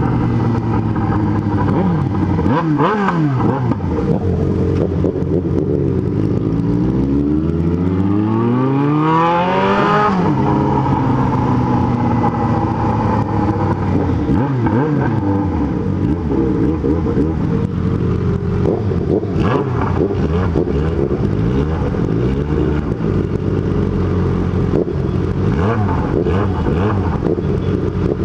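Yamaha XJ6 N's 600 cc inline-four engine running loud while riding. Its pitch drops at first, climbs steadily through a rev-up that peaks about a third of the way in, then wavers through the rest.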